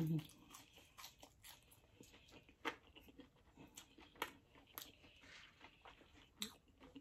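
Close-miked chewing of crunchy fried food, with soft irregular crunches and mouth clicks spaced a second or so apart.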